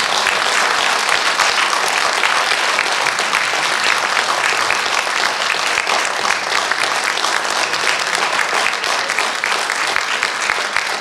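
Audience applauding: a dense, steady clapping of many hands.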